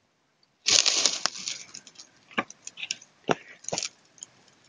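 Rustling and crackling handling noise, loudest for about a second near the start, followed by a handful of sharp clicks.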